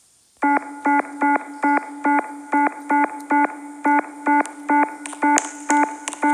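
Rapid electronic beeping: a single buzzy tone pulsed on and off about two and a half times a second, starting about half a second in.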